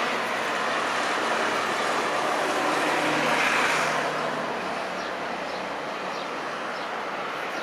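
Jet airliner engine noise that swells to a peak about three and a half seconds in, then slowly fades, with a faint low hum under it.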